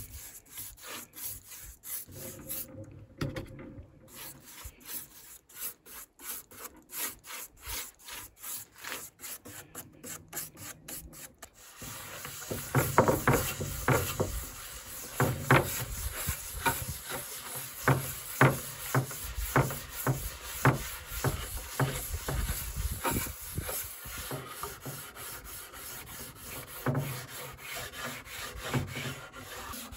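A hand tool working an old wooden board in repeated back-and-forth strokes, rubbing and rasping. About twelve seconds in, the strokes get louder and coarser.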